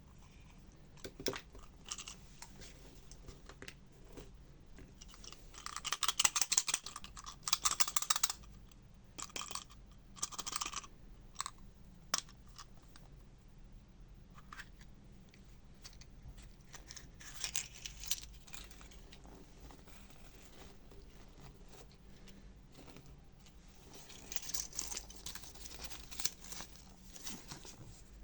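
Hands unwrapping and opening surprise eggs: crinkling and tearing of the wrappers in several bursts, loudest about six to eight seconds in, with small clicks and taps of the eggs and toys in between.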